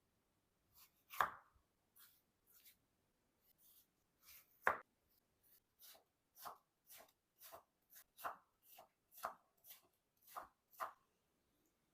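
Kitchen knife cutting food on a cutting board: separate chops, two loud ones early, then a steadier run of about two cuts a second.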